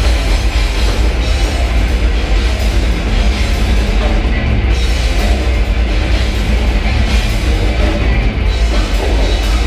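Heavy rock band playing live, loud and unbroken, with a drum kit and a heavy, booming low end.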